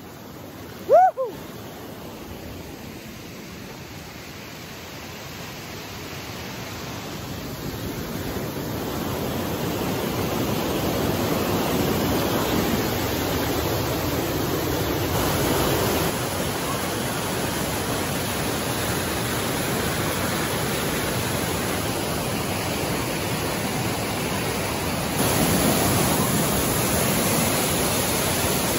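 Waterfall pouring over rock slabs into a pool: a steady rushing of water that swells over the first several seconds and gets louder again near the end. A brief loud pitched sound about a second in.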